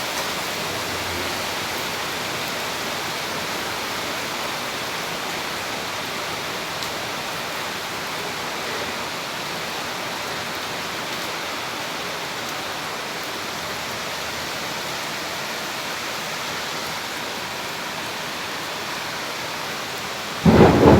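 Heavy tropical downpour falling steadily. Near the end comes a sudden loud burst.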